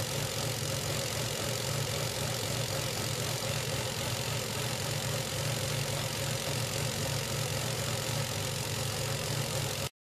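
Renault Megane 2 1.6-litre engine idling steadily from cold, with a noise from the belt drive that is the sign of a failing oil-filled pulley (yağlı kasnak), a noise heard only while the engine is cold. The sound cuts off suddenly near the end.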